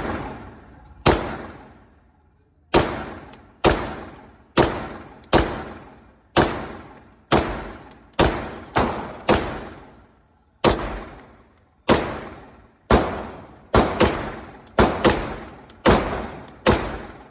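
Glock 34 Gen 3 9mm pistol firing about twenty shots at an uneven pace, some in quick pairs and triplets. Each shot rings out with a reverberating tail.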